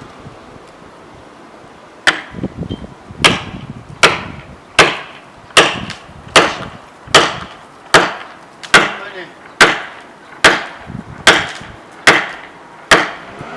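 A steady run of sharp blows of a tool on wood, a little more than one a second, starting about two seconds in.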